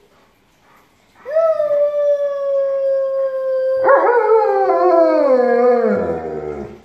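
Alaskan Malamute howling. After about a second of quiet it holds one long, steady note. About halfway through the howl turns wavering and falls in pitch before fading near the end.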